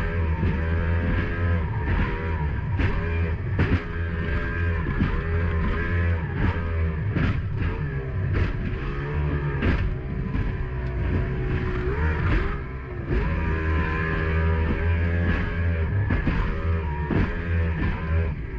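Mercury 2.0 V6 two-stroke outboard running at speed, its pitch rising and falling over and over as the hull bounces across chop, with wind and water rush and occasional sharp slaps of the hull on the waves.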